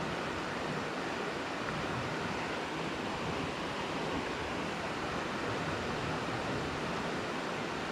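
Steady rush of river water flowing over rocks, an even, unbroken noise.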